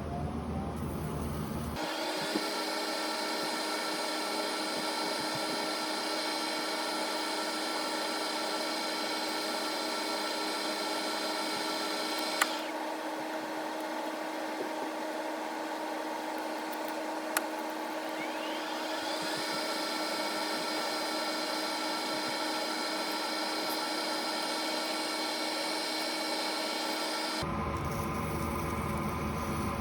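A lathe spinning a bicycle hub bearing cone while sandpaper is held against it to polish the bearing surface. The motor gives a steady multi-tone whine; its higher tones fade about twelve seconds in and climb back up a few seconds later, with a few sharp ticks along the way.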